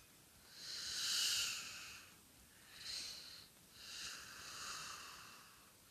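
A person breathing close to the microphone: three breaths in and out, the first and last long, the middle one short.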